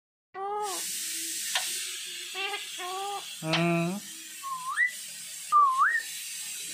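Alexandrine parakeet talking: several short, word-like mimicked sounds, then two rising whistles about four and five and a half seconds in.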